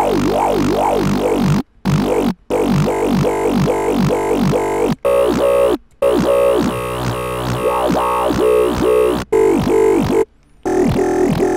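Dubstep growl bass from the Serum software synth, run through distortion and EQ, played as held notes with fast repeating LFO wobble sweeps that give it a vowel-like, talking character. It breaks off briefly between notes several times, and about five seconds in the tone turns brighter and fuller as the patch is tweaked.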